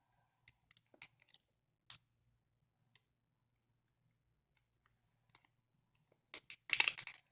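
Scattered light clicks and taps of small tools and parts being handled on a workbench, ending in a short, louder clatter near the end.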